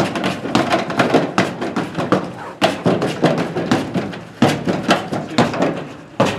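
A free-standing punching bag being punched hard and fast, a rapid, irregular string of dull thuds about three a second, with short pauses twice.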